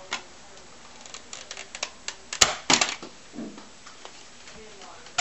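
Nerf dart blaster being handled and fired: a few light mechanical clicks, then a sharp snap about two and a half seconds in, followed at once by a quick cluster of louder clicks.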